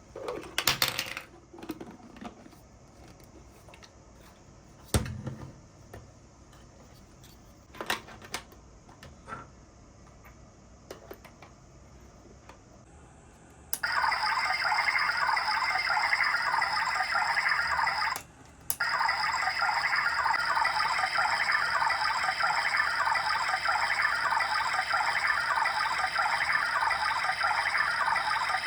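A few clicks and knocks of plastic being handled, then a small battery-powered toy kitchen appliance starts up: its little motor whines steadily while water runs and splashes. It cuts out for about half a second a few seconds after starting, then runs on steadily.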